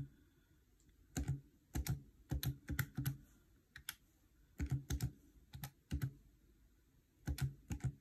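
Buttons of a plastic desktop calculator pressed by fingers with long false nails: quick clicks in small irregular groups, with short pauses between them.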